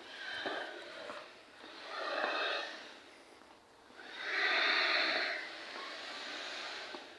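A person breathing heavily close to the microphone: three long, breathy swells, the loudest about four seconds in.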